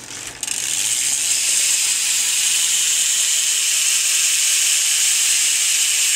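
BMX rear cassette hub freewheeling as the wheel spins: a fast, steady ratcheting buzz from the pawls. It gets louder under a second in, then holds level and stops abruptly.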